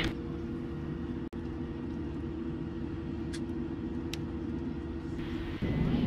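Steady cabin noise of a jet airliner in flight just after takeoff: a low rumble with a steady hum. It drops out for an instant about a second in and gets louder near the end.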